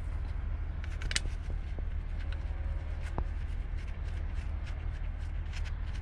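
Light, uneven clicks and rustling as a gloved hand works at a plug on a van's manual gearbox casing, over a steady low rumble.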